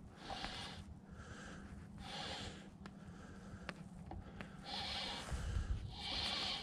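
A man breathing hard in several short puffs, each about half a second long, close to the microphone, from the exertion of fighting a hooked fish. A few faint clicks come between the breaths.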